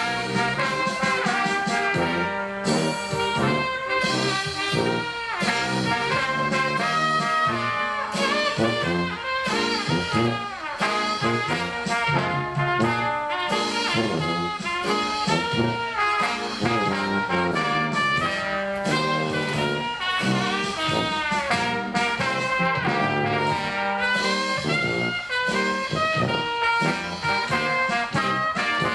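Oompah band music with brass instruments to the fore, playing continuously.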